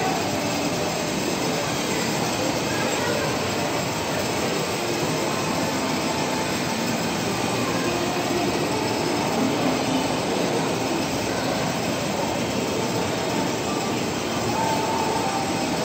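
Children's battery-powered ride-on toy car driving along a tiled floor: a steady whir of its electric motor and gearbox with the rumble of its hard plastic wheels.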